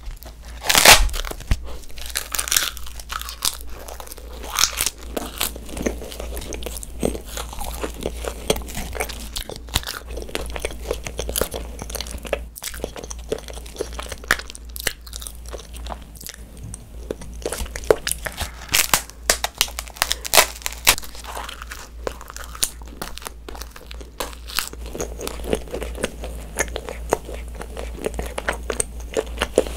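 Sheets of edible coloured paper being bitten and chewed close to the microphones: crisp crunches and crackles throughout, the loudest bite about a second in.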